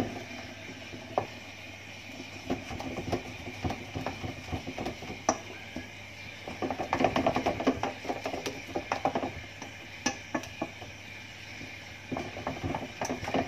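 Wooden spoon stirring and beating a flour-and-water dumpling batter in a stainless steel bowl: scraping with quick knocks against the metal. The knocks come thick and fast in a run about seven seconds in, and again near the end.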